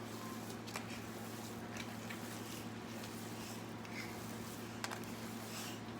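Faint squishing of hands mixing raw meat with salt and garlic in a bowl, with a few soft clicks, over a steady low hum.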